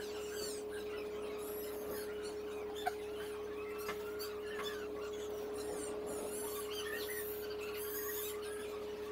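Rapid, high-pitched chirping and twittering from a small animal, repeated throughout, over a steady low hum.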